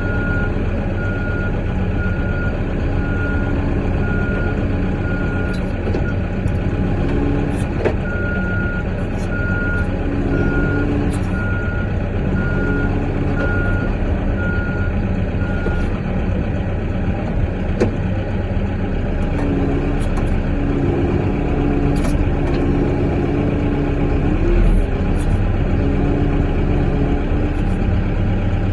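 Caterpillar 420 backhoe's diesel engine running while its reverse alarm beeps steadily; the beeping stops about halfway through and the engine keeps running.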